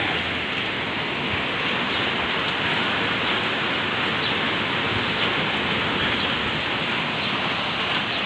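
Heavy typhoon rain driven by strong wind, a steady, dense rush with no let-up.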